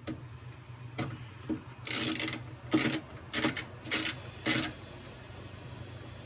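11/32 nut driver turning a nut off a bill validator's mounting stud in a soda machine: a click, then five short metal-on-metal rasping strokes in quick succession, the first the longest.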